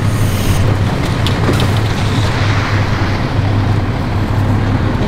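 Pierce Velocity fire engine's Cummins L9 diesel running with a steady low drone, with a brief hiss about half a second in.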